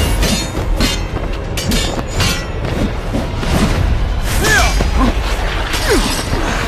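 Animated fight sound effects: a run of booming impacts as a flaming blade and red energy attack clash, over dramatic background music.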